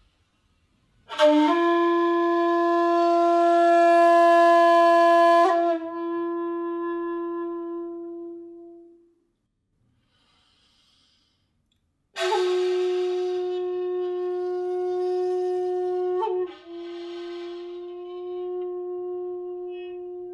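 End-blown bamboo chiba (shakuhachi) flute playing two long, slow held low notes. Each starts breathily and slides slightly in pitch partway through. The first fades out, and the second begins after about three seconds of silence.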